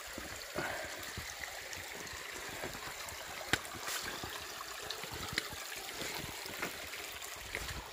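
Creek water running steadily, a continuous rushing hiss, with a few sharp clicks over it, the loudest about three and a half seconds in.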